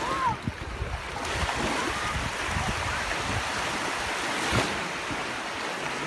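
Small sea waves washing over the shallows at the shoreline, a steady rush of surf, with a brief knock about four and a half seconds in.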